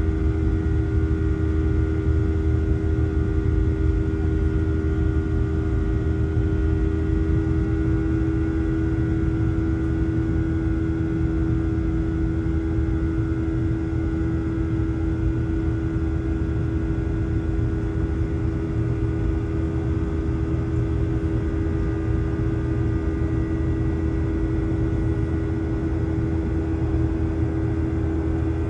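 Cabin noise of a jet airliner: a steady drone of the engines and rushing air, with a strong steady hum and a few fainter high whining tones.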